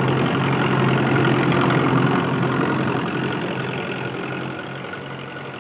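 Tractor engine running steadily as it draws a seed drill, loudest about two seconds in and growing quieter through the second half.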